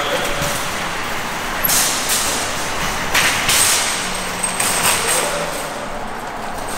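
Metal shopping cart rattling and clattering as it is pushed fast on its casters across a concrete floor and out over asphalt, with a few louder rattles about two and three and a half seconds in.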